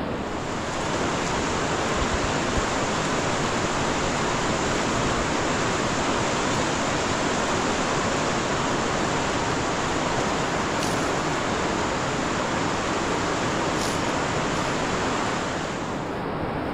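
A steady rushing noise with no tone or rhythm, holding an even level throughout.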